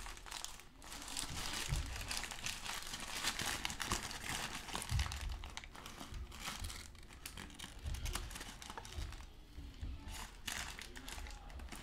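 Paper sandwich wrapper crinkling and rustling as hands unfold it from a fast-food chicken sandwich, in a long run of irregular crackles with a few dull bumps of handling.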